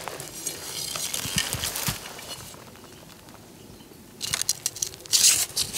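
Dry twigs and grass rustling and crackling as a hand reaches into the brush and picks up an arrow. After a short quieter gap, louder crackling and rustling of brush comes near the end.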